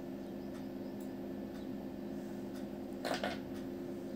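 Quiet room tone: a steady low hum with faint ticks, and one brief soft rustle about three seconds in.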